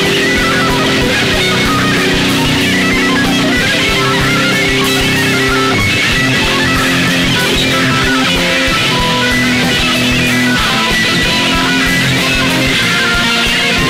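Live instrumental rock: a distorted electric guitar plays a lead line, tapped with both hands on the fretboard, over drums. It is loud and heard from the audience.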